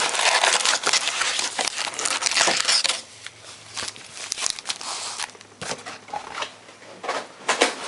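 Plastic wrapping on trading-card packaging crinkling and tearing as it is opened. It is loud and dense for about three seconds, then turns to softer scattered crackles.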